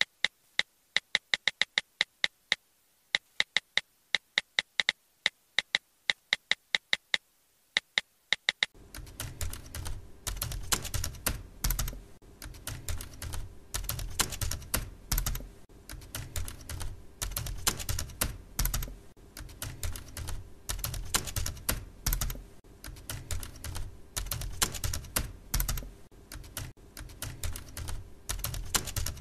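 Typing: first a sparse run of sharp, clicky key taps with silence between them, then, about nine seconds in, fast continuous typing on a computer keyboard.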